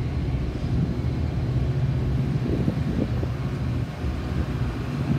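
City street ambience: a steady low engine hum over the rumble of traffic.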